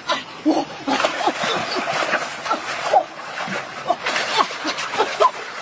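Water splashing in a shallow stream as a person thrashes in it after a fish, under many short, squeaky vocal sounds that rise and fall in pitch.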